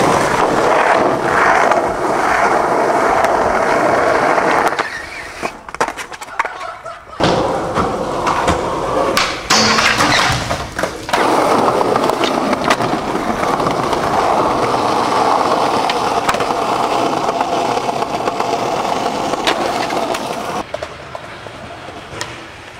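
Skateboard wheels rolling over concrete and pavement in a steady rolling rumble, broken by a few sharp knocks of the board and two short lulls.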